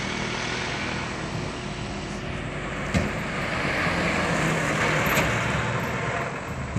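Heavy trucks passing: steady engine and tyre noise that swells a little past the middle, with one short sharp click about three seconds in.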